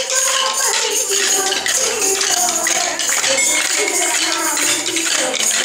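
Dance sticks clicking together in a steady rhythm as dancers strike them, over music with a melody.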